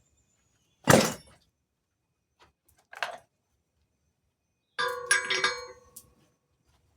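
Hammer blows on steel over an anvil, cutting off a piece of stock. A loud strike comes about a second in and a lighter one about two seconds later. A quick cluster of strikes near the end leaves the anvil ringing.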